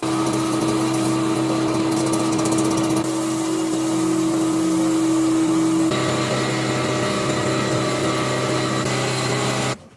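An electric motor or power tool running at steady speed with a strong steady hum, changing abruptly about six seconds in and cutting off suddenly near the end.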